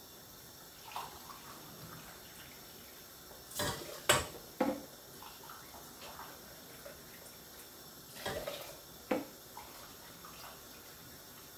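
Water pouring from an electric kettle into a metal saucepan, with a few sharp clunks, two clusters a few seconds apart.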